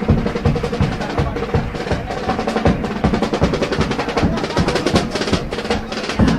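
Chirigota band playing an instrumental passage: bass drum and snare drum beating a quick, even rhythm under steady held instrument tones.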